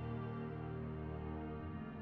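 Soft ambient background music of long sustained notes.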